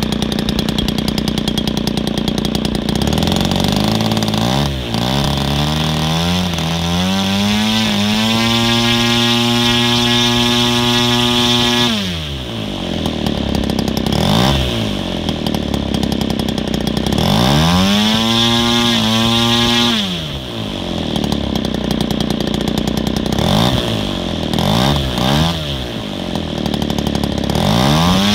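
Super Tigre 3000 two-stroke model engine, converted to run on gasoline, running and being revved up and down. It climbs to a steady high speed, drops back to a low idle about twelve seconds in, revs up again briefly, then gives several short blips before climbing once more near the end.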